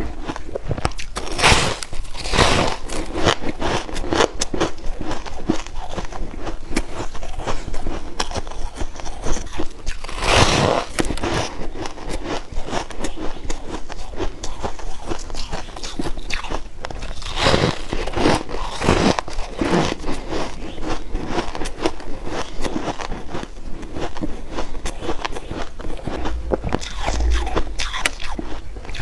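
Close-miked biting and chewing of pressed shaved ice flecked with rose petals: steady crisp crunching and crackling, with louder bites near the start, about ten seconds in, and again around seventeen to nineteen seconds.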